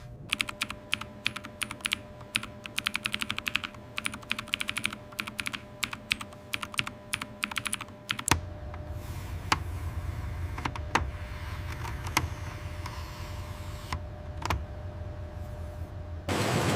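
Mechanical keyboard keys clacking in quick, irregular runs. From about eight seconds in, the clicks thin out to separate keystrokes over a low steady rumble.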